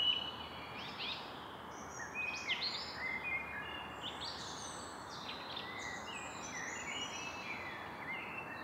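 Evening forest ambience: several songbirds singing at once, with short chirps and quick whistled sweeps overlapping over a steady background hiss.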